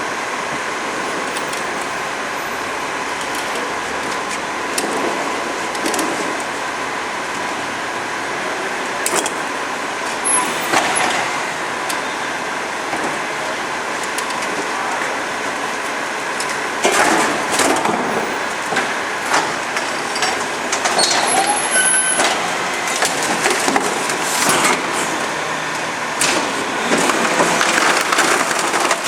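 HEIL Formula 4000 rear-loader garbage truck running steadily while its compactor crushes a fridge and a 240-litre wheelie bin. Scattered cracking and splintering snaps come through, heaviest in the second half.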